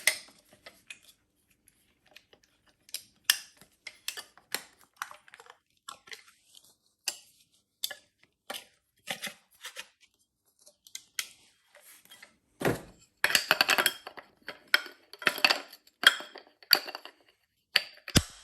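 Hands handling the cordless angle grinder and its hard plastic and metal parts: scattered clicks, knocks and clinks, busier and louder for the last few seconds.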